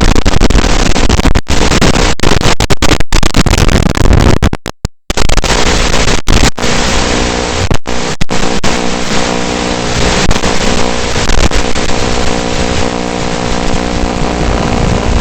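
FPV quadcopter's motors buzzing at speed, loud and noisy with a set of steady motor tones, cut by several brief dropouts and one short gap a little before the middle.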